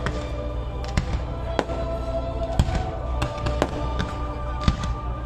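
Fireworks display: shells bursting with sharp bangs at irregular intervals, about seven in five seconds, over steady music.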